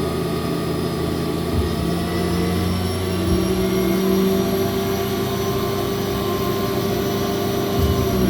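Remedy SL25 CNC gang tool lathe's spindle running, a steady machine whine that steps and climbs in pitch over the first few seconds as the spindle speeds up, then holds, and begins to drop near the end.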